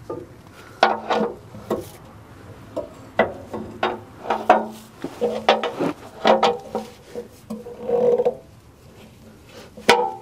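Socket and breaker bar tightening the oil drain plug on a Cummins ISX15 diesel's oil pan: irregular metal clicks and knocks from the tool on the plug, with a few short squeaks.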